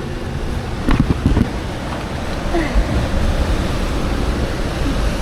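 Steady wind on the microphone mixed with the wash of ocean surf, with a few brief knocks about a second in.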